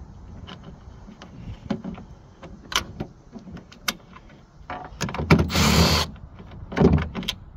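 Light clicks and rattles of the tailgate latch parts being handled. About five seconds in, a Milwaukee Fuel brushless cordless driver runs for just under a second, backing out a 10 mm bolt from the latch mechanism. A short knock follows near the end.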